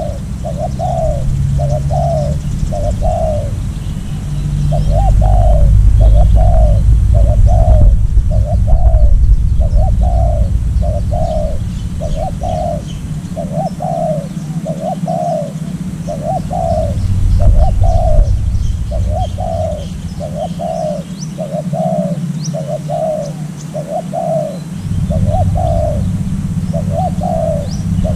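Decoy dove cooing in a steady series of short notes, about one a second, without a break. A low rumble runs underneath, with faint high chirps of small birds above.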